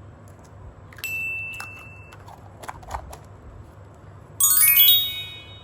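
Cartoon sound effects: a bright single ding that rings for about a second, a few soft clicks, then near the end a sparkling chime run that steps down in pitch.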